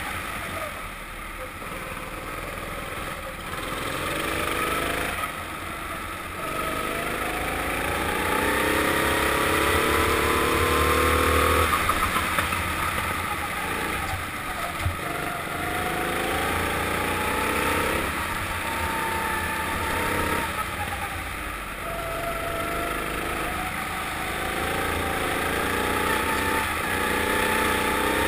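Four-stroke rental kart engine accelerating and lifting off lap after lap: the pitch climbs steadily along each straight, drops sharply into each corner, and climbs again, about five or six times.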